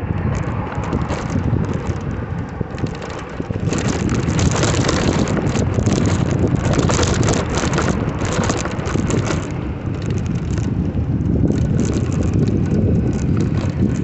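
Wind buffeting the microphone and tyre rumble from an electric bicycle riding along a paved bike path, with a dense crackle and rattle over the rough surface that grows louder about four seconds in.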